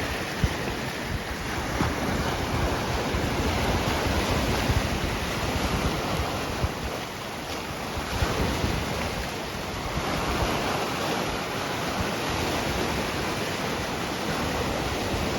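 Sea waves washing in steadily, the surf swelling and easing, with wind rumbling on the microphone.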